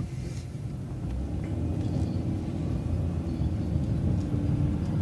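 Transit bus engine rumbling, growing steadily louder as the bus pulls away from a stoplight, with a steady hum over the rumble.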